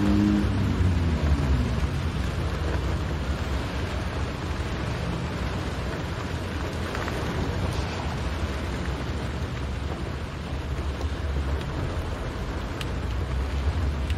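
Steady low rumble of a car's engine and tyres on a wet road, heard from inside the cabin, under an even hiss of rain on the windscreen. A humming engine note drops in pitch and fades in the first second or so, and a few faint ticks come near the end.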